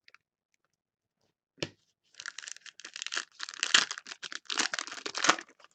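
Foil wrapper of a trading-card pack being torn open and crinkled by hand. A run of rustling tears starts about two seconds in and lasts about three seconds.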